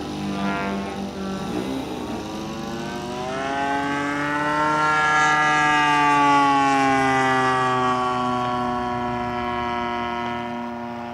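Model aerobatic plane's DLA 64 twin-cylinder two-stroke petrol engine and propeller in flight, a steady buzzing drone. Its pitch climbs a few seconds in, it is loudest about halfway as the plane passes, then the pitch slowly falls.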